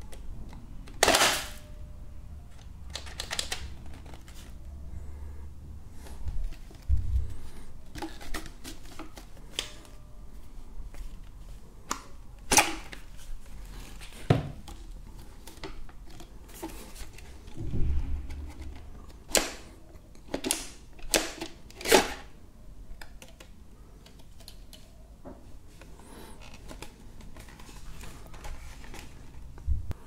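Plastic clicks, knocks and rattles from handling the Xiaomi G11 stick vacuum's dust bin while it is emptied and taken apart: bin lid, cyclone and filter being unlatched and pulled out. Irregular sharp clicks, with a couple of dull thumps.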